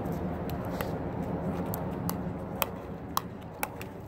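Pickleball paddles striking a plastic pickleball and the ball bouncing on the hard court in a short dink rally: a string of sharp pocks, the three loudest coming about half a second apart in the second half. A steady low background rumble lies under them.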